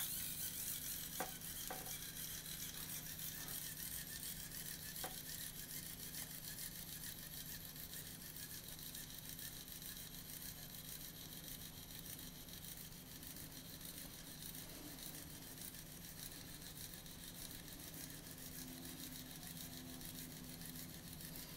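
DigiHero 3D pen's small filament-feed motor whirring steadily as it pushes PLA through the hot nozzle, starting just after a click.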